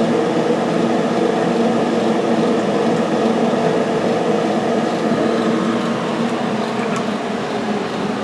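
Steady mechanical hum with several constant tones, like cooling fans running.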